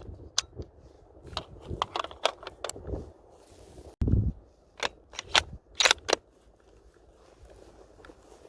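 Sharp metallic clicks and rattles of a bolt-action rifle being handled and worked, in two bunches, with a sudden heavy low thump about four seconds in; it goes quieter after about six and a half seconds.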